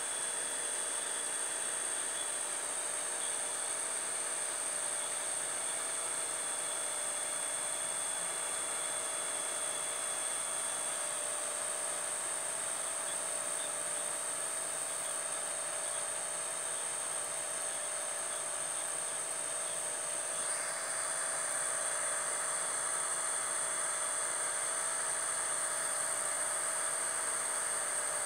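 Evening insect chorus, a steady high-pitched drone over a broad hiss, growing slightly louder about two-thirds of the way through.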